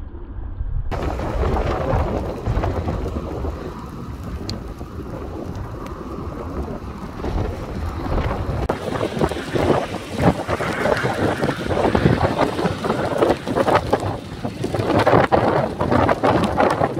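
Wind buffeting the microphone in gusts, with a steady low rumble at first that turns into stronger, irregular gusts about halfway through.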